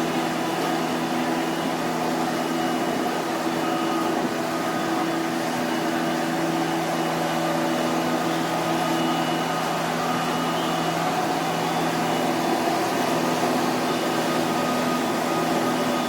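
Steady machine hum of a running wood-fired steam boiler plant: a rushing air noise with a few low, steady tones in it.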